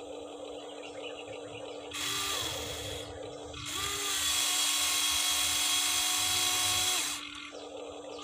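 Huina 1593 RC excavator's small electric gear motors whirring as the boom, arm and bucket move, in stop-start runs. The loudest run lasts about three seconds from around four seconds in, with a shorter one just before it.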